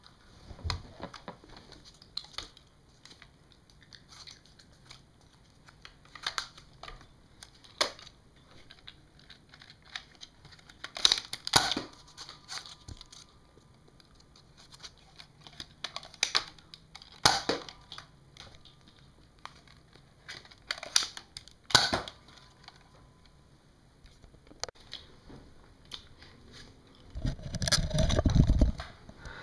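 Nerf Nite Finder spring-powered pistol being loaded, primed and fired, with sharp plastic clicks and snaps every few seconds as darts are shot at the target. Near the end there is a low rumbling of the camera being handled.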